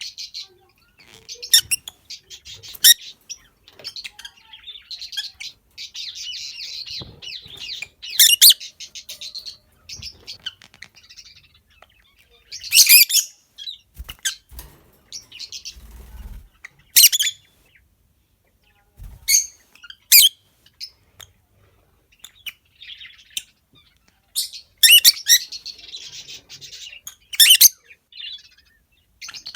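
Peach-faced lovebirds chirping and chattering in a fast, high twitter, broken every few seconds by short, loud, shrill calls.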